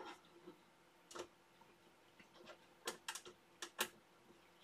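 Small hex key clicking and tapping against screws and the hull wall of a model ship kit: about half a dozen sharp, irregular clicks.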